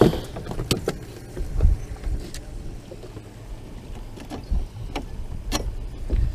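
Irregular knocks and clicks of a plastic cooler and tackle box being handled on a boat deck, about a dozen, the sharpest right at the start, with low rumbles between them.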